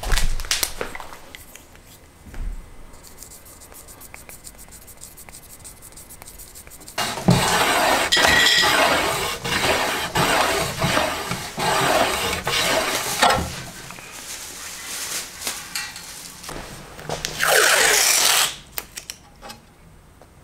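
Blue painter's tape being pulled off its roll in long strips, a crackling rasp lasting several seconds in the middle and a shorter one near the end, as the fin roots are masked for epoxy fillets. A few handling knocks of the rocket on the bench come early on.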